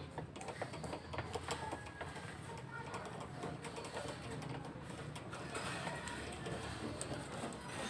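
Small clicks, taps and scrapes of hand tools and metal parts while the cover of a stereo amplifier is being taken off.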